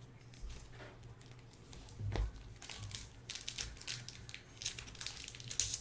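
Trading-card packaging being handled: crinkling and rustling of wrapper, sparse at first and busier in the second half.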